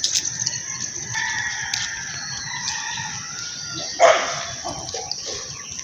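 A rooster crowing in one long drawn-out call, then a short rough call about four seconds in.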